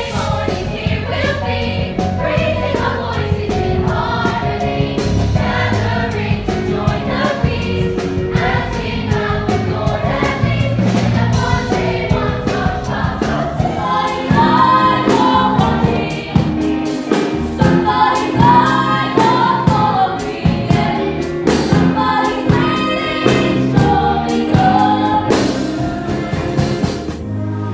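Ensemble cast of a stage musical singing with band accompaniment, the drum beat growing sharper about halfway through.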